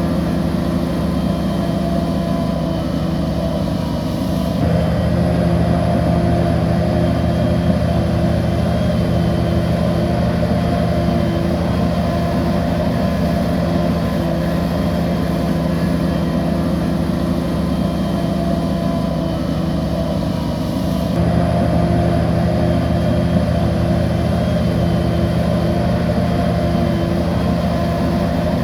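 Heavy diesel engine of a crawler bulldozer running steadily under working load, its pitch and level stepping up about five seconds in and shifting again about 21 seconds in.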